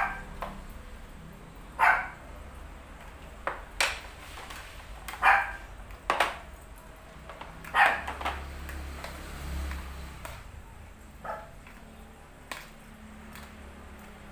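A dog barking, single barks every two to three seconds, with a few sharp knocks in between.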